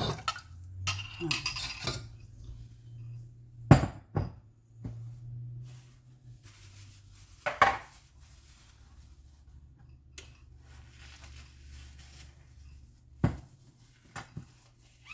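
Dishes and metal utensils clinking and clattering as kitchenware is handled, a sharp knock every few seconds over a low steady hum.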